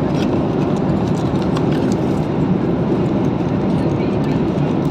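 Steady low rumble of an airliner's cabin noise in flight, even throughout, with a few faint clicks.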